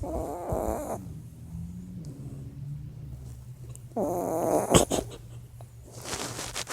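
Dog snoring in its sleep: two drawn-out snores about four seconds apart, the second ending in a sharp click.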